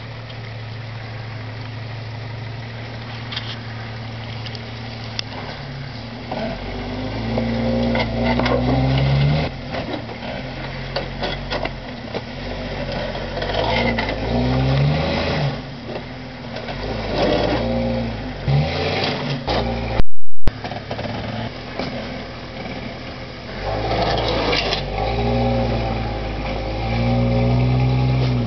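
Lifted Jeep Grand Cherokee's engine idling steadily, then revving in repeated surges from about six seconds in as it crawls its tyres up and over a large boulder, with scattered knocks and scrapes. A brief dropout in the recording about twenty seconds in.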